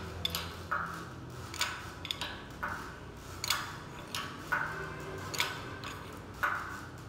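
Pull-test rig being worked to load a chain: sharp clicks roughly every half second to a second, each followed by a short rasp, as the pull on the four-bolt stump top climbs towards four tonnes. A faint steady low hum runs underneath.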